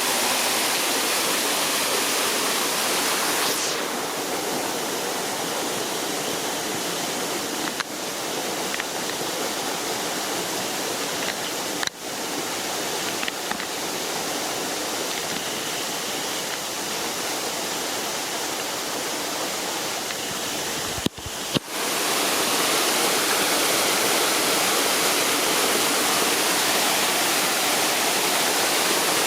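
Waterfall in a zoo aviary: water pouring steadily. The sound drops out briefly a few times and comes back somewhat louder about two-thirds of the way through.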